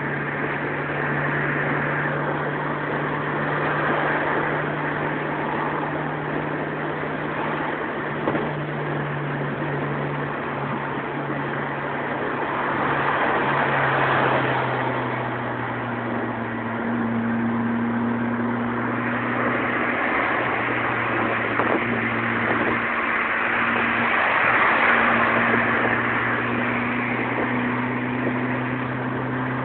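Car engine droning at high road speed, heard from inside the cabin under a steady rush of wind and tyre noise. The engine note steps down about halfway through, and the rushing swells a few times.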